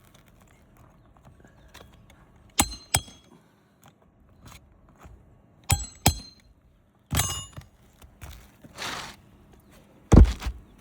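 Steel roofing pry bar working on asphalt shingles: sharp metal clinks with a brief ring, coming in two quick pairs, then a few more knocks, a short scrape and a heavier thud near the end.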